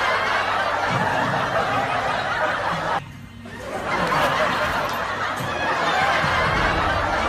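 Crowd laughter: many people laughing at once, dropping out briefly about three seconds in.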